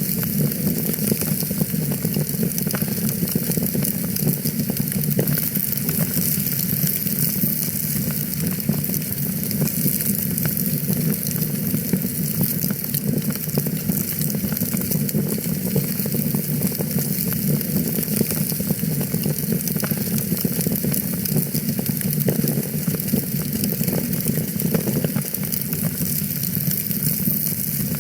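Fireplace fire crackling steadily: many small snaps and pops over a continuous hiss.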